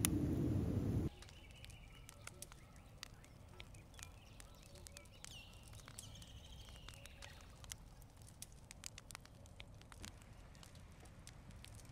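Wood campfire crackling in a fire ring: scattered sharp pops over a quiet background, louder and fuller for about the first second. Faint high calls come in twice in the middle.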